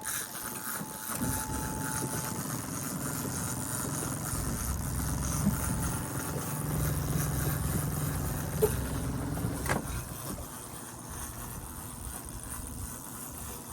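Boat engine running steadily, a low rumble that swells somewhat in the middle and eases off about ten seconds in.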